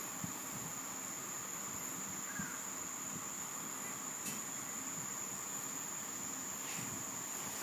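Steady, unbroken high-pitched insect trill over a faint background hiss, with a soft tick about four seconds in.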